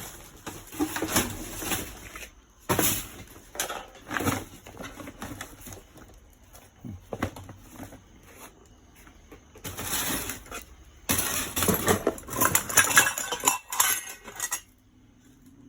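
Hard household items, dishes and glassware, clinking and knocking against each other as they are handled and rummaged through in a dumpster, in irregular clusters of clatter. The busiest, loudest clatter comes near the end.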